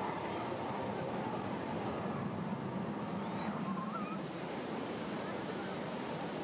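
Steady wash of ocean surf breaking on the beach.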